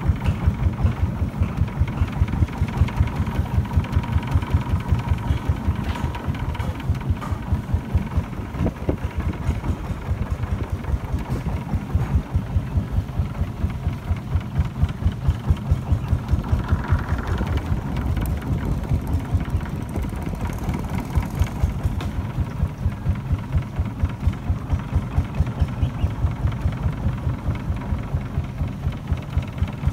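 A boat's engine running steadily under way, chugging with an even beat of about four pulses a second.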